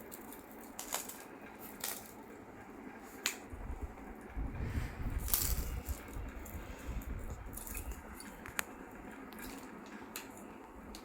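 Pearl necklace set and jhumka earrings being handled and put on: scattered small clicks and clinks of beads and metal settings, with a low rubbing rumble from about four to seven seconds in.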